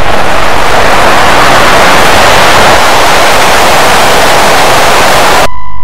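Loud TV static, a harsh, even hiss of white noise that cuts off suddenly near the end and gives way to a steady test-card beep.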